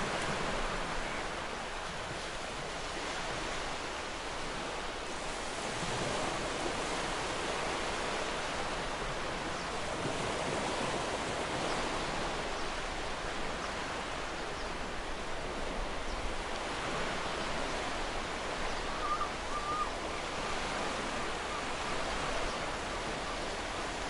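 Ocean waves breaking and washing on the shore: a steady surf wash that slowly swells and eases. A brief faint bird call comes through about two-thirds of the way in.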